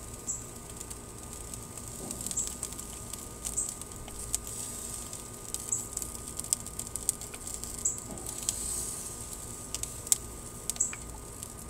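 Irregular small pops and crackles of barbecue sauce sizzling as it is brushed onto ribs on a hot gas grill grate. A faint high chirp repeats about once a second, over a low steady rumble.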